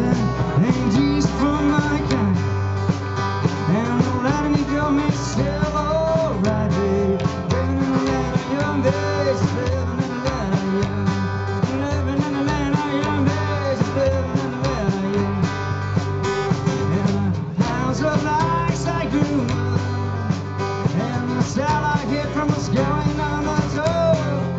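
Live rock band playing: strummed acoustic guitar, drum kit and a second guitar, with a man singing.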